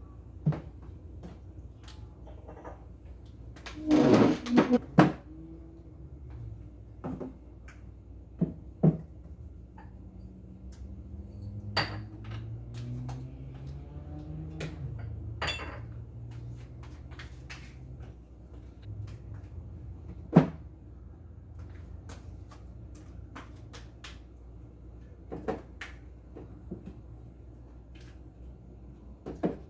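Seasoning bottles and jars being set down on a kitchen cupboard shelf: scattered knocks and clinks, with a quick run of several about four seconds in.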